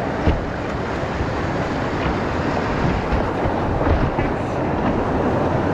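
Steady rushing of whitewater around an open canoe running a river rapid, with a few brief sharp splashes or knocks from paddle strokes.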